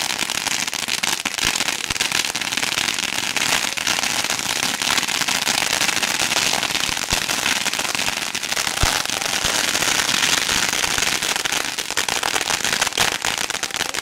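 A giant string of about 120,000 firecrackers lit at once, going off in a dense, unbroken rattle of sharp pops at a steady loudness.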